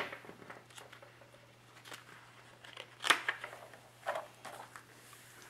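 Pages of a paper instruction manual being handled and turned, a few short paper rustles with the sharpest about three seconds in and a softer one a second later.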